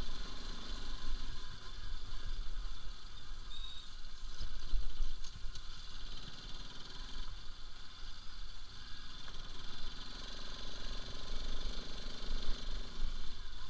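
Bajaj Pulsar RS200's single-cylinder engine running as the motorcycle rides slowly over a rough lane, with an uneven low rumble of wind and road on the microphone.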